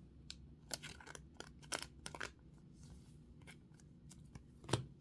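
Faint crinkling and rustling of a thin clear plastic penny sleeve as a trading card is slid into it, in short scattered crackles, with one sharper tap near the end.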